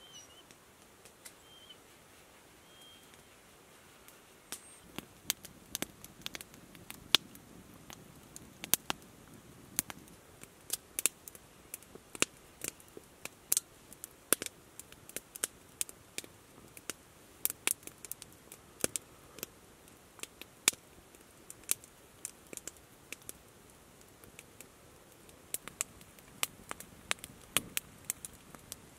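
Raindrops dripping and tapping, sharp irregular ticks a few a second, beginning a few seconds in.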